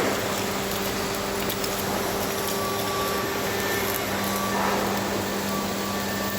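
Steady roar of blast furnace plant machinery, with a constant low hum and faint whistling tones that come and go.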